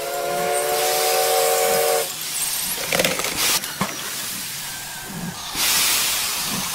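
A whistle chord of several steady tones sounds for about two seconds over a constant hiss. A few knocks come around three seconds in, and the hiss grows louder near the end.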